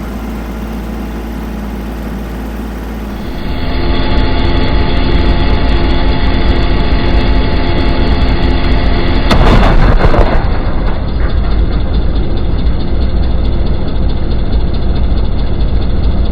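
An engine running steadily. It gets louder a few seconds in, with a brief louder surge about ten seconds in.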